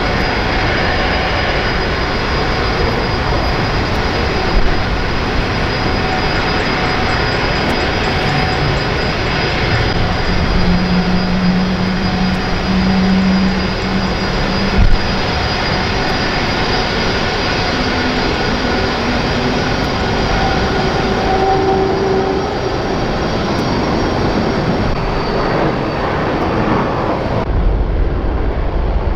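Jet aircraft engines, a loud steady roar with a thin high whine over it. The sound changes abruptly near the end.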